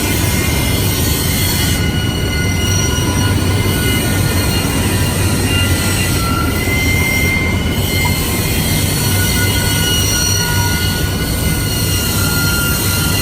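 Polishing machines working steel bottles and cups make a loud, steady din. Under it runs a low hum, and high thin squealing tones come and go.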